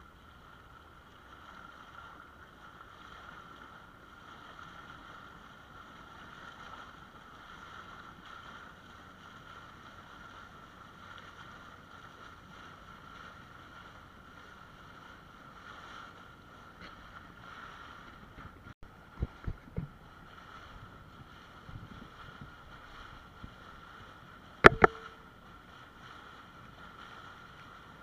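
Faint, steady drone of a small boat's motor running under way. Two short thumps come about two-thirds of the way through, and a sharp, loud knock near the end.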